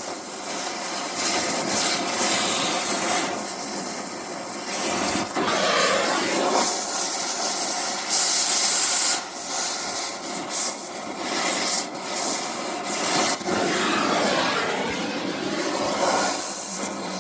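Oxy-fuel cutting torch hissing steadily as it cuts through a wheel-rim bolt, swelling several times into a louder, sharper hiss.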